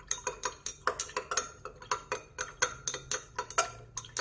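Glass stirring rod clinking against the inside of a glass beaker while stirring a liquid: a quick, steady run of small ringing clinks, about four or five a second.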